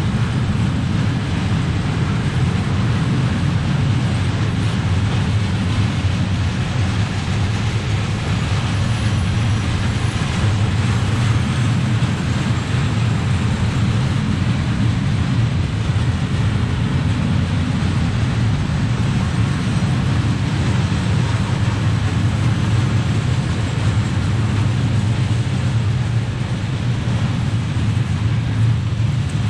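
Freight train of covered hopper wagons rolling past, its wheels on the rails making a steady low rumble.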